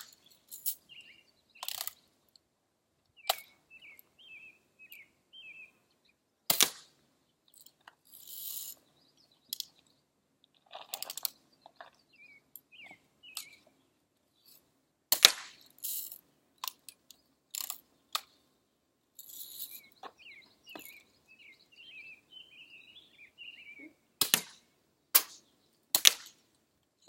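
BB gun shots: single sharp cracks at irregular intervals, bunched more closely in the middle and near the end. Small birds chirp in short trills between them.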